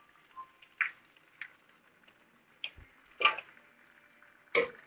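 A cooking utensil clinking and knocking against a pot as chicken is stirred in it: a handful of separate short clinks, about a second apart, the loudest about three seconds in.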